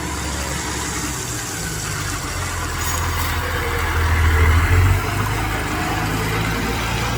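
Fire truck's engine running close by, getting louder and peaking about four to five seconds in before easing slightly.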